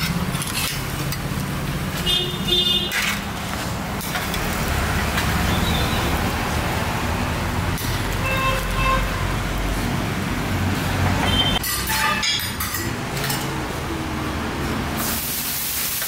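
Road traffic passing with a steady rumble, with a few short metallic clinks of a steel spatula against the dosa pans.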